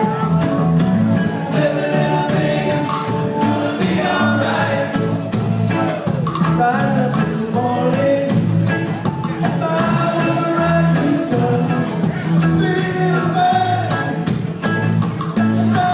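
Band playing a reggae song, with a singing voice over a steady bass line and drums.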